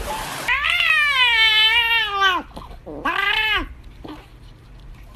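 Cat meowing twice: a long drawn-out meow of nearly two seconds that drops in pitch at the end, then a shorter one about three seconds in. Water splashes briefly at the very start.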